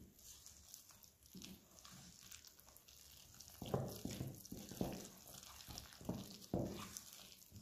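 Wooden spoon stirring a wet, shaggy flour-and-water dough in a glass bowl: soft, wet stirring strokes, faint at first, then clearer at about one or two a second from about halfway in.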